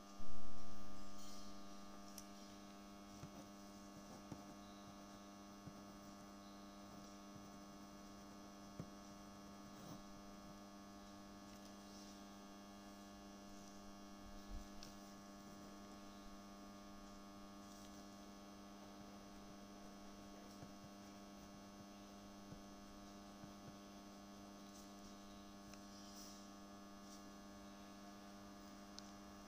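Steady electrical hum, a stack of unchanging tones, at a low level. A loud sudden sound right at the start dies away over about two seconds, and a few faint clicks are scattered through.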